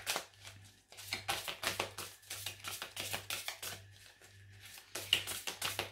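Oracle cards being handled and shuffled: a run of quick, light papery clicks and snaps, pausing briefly twice.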